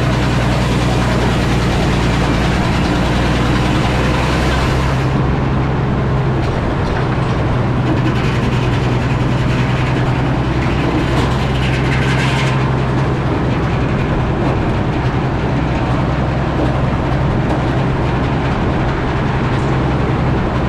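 Antique Frick sawmill running, its engine droning steadily. A harsher, higher noise rises over the drone between about 8 and 12 seconds in.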